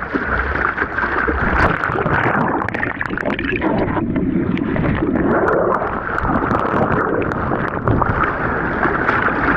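Ocean water splashing and rushing right against an action camera's microphone, a continuous loud wash full of crackles.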